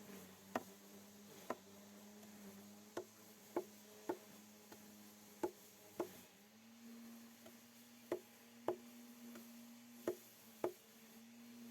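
A series of sharp clicks or knocks at uneven intervals, roughly one a second, over a steady low hum that steps slightly higher in pitch about halfway through.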